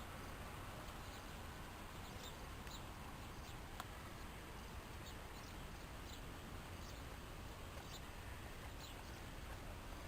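Guinea pig giving short, high squeaks, faint and repeated about once or twice a second over a steady background hiss.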